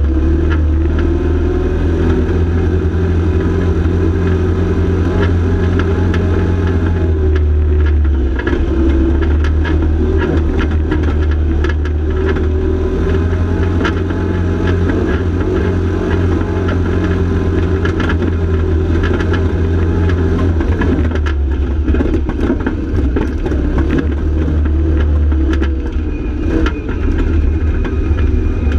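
Arctic Cat side-by-side UTV engine running steadily as the vehicle drives along a dirt trail, its speed shifting a few times. Frequent short knocks and rattles come from the vehicle bouncing over the rough ground.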